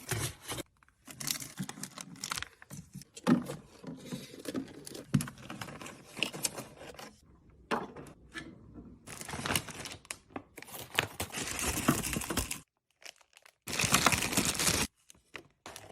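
Plastic snack packaging crinkling and rustling as packs are handled and set in place, with sharp clicks and taps in between. The sound stops dead a few times, briefly.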